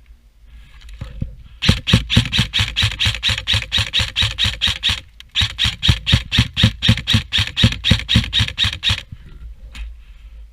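Airsoft gun firing in two long strings of rapid, evenly spaced shots, about seven a second, with a brief break between the strings.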